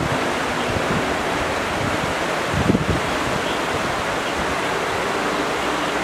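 Fast-flowing river rushing over shallow rapids, a steady rushing noise, with a brief low buffet of wind on the microphone about two and a half seconds in.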